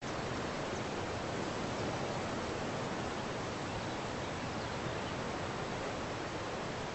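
Steady, even rushing noise of an outdoor nature recording, cutting in abruptly at the very start.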